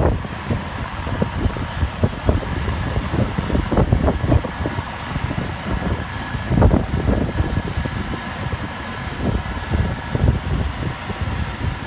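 Wind buffeting the microphone in irregular gusts over the rush of water from two Hose Monster flow-test diffusers, which dwindles as the water is shut off.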